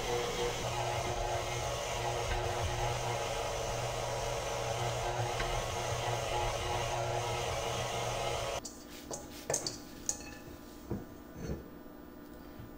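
KitchenAid stand mixer running steadily as its dough hook kneads bread dough, cutting off abruptly about two-thirds of the way in. A few light knocks and clicks follow as the steel mixing bowl and dough are handled.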